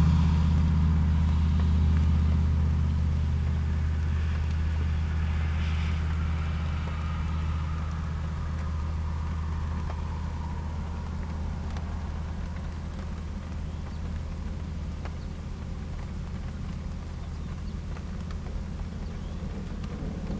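Low, steady engine drone that slowly fades, with a faint whine falling in pitch partway through.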